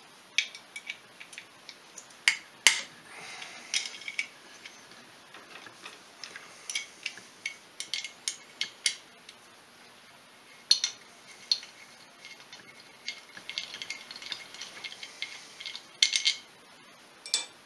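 Scattered metallic clicks and clinks of a wrench and loose bolts as small bolts are taken off the cylinder head of a Polaris 500 ATV engine, with a few short runs of quick clicking.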